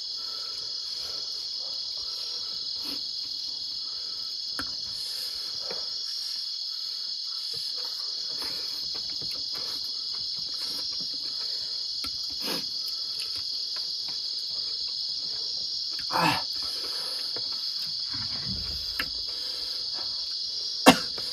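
Steady chorus of crickets trilling, with soft mouth sounds of people eating with their fingers, a short louder smack about sixteen seconds in and a sharp click near the end.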